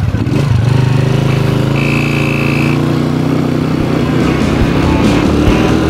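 Small street motorcycle engine pulling away under load and speeding up, its pitch rising over the first few seconds.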